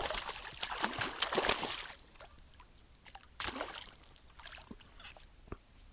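Pike thrashing and splashing at the surface while on the line, close to the boat: a long burst of splashing over the first two seconds, then a shorter splash about three and a half seconds in.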